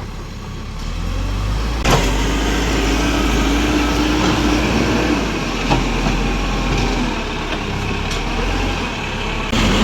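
Tractor engine running steadily, with a sharp clank about two seconds in and a lighter one a few seconds later.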